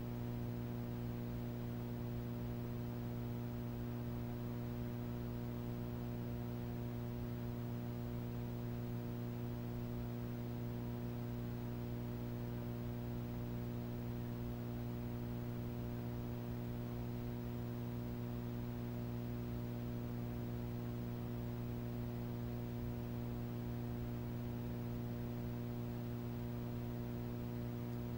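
Steady, unchanging electrical mains hum: a low buzz with a faint hiss behind it.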